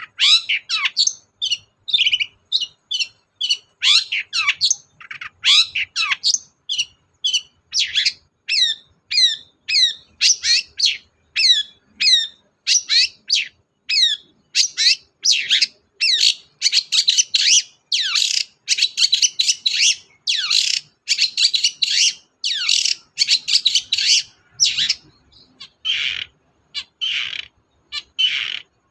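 Long-tailed shrike (cendet) singing a fast, unbroken string of sharp chirps and harsh, scratchy notes. The notes come more tightly packed from about halfway through.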